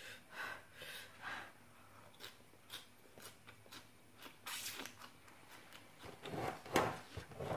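A person eating spicy papaya salad and raw bean sprouts close to the microphone: short crunches and sharp breaths against the chilli heat, in a string of separate bursts, the loudest near the end.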